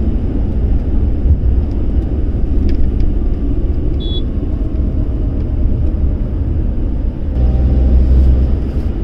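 Steady low rumble of engine and tyre road noise heard inside a car's cabin at highway speed. There is a brief high chirp about four seconds in, and the low drone swells for about a second near the end.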